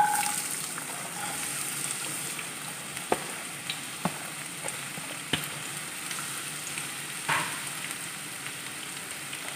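Finely chopped onions hitting hot coconut oil in a nonstick pan: a sudden burst of sizzling as they go in, settling into a steady frying hiss with occasional sharp pops.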